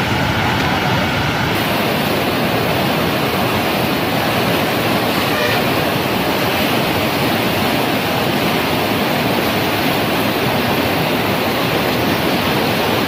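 Flood-swollen stream rushing over rocks: a loud, steady wash of fast-flowing water.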